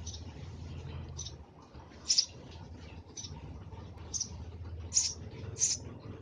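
Eurasian tree sparrow giving short, high chirps, about one a second, seven in all, over a low steady rumble.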